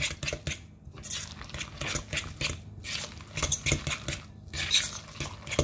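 A metal utensil stirring a thick ricotta, shredded cheese and egg mixture in a glass mixing bowl, making a steady run of irregular clinks and scrapes against the glass.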